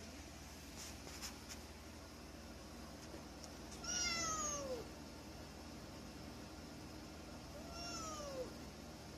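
Domestic cat meowing twice: a long call falling in pitch about four seconds in, then a shorter, fainter one that rises and falls near the end.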